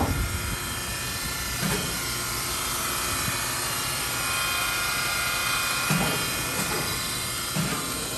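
Toshiba Shibaura TX-16 vertical boring mill running under power: a steady mechanical hum with a high steady whine, and a few short knocks about two, six and seven and a half seconds in.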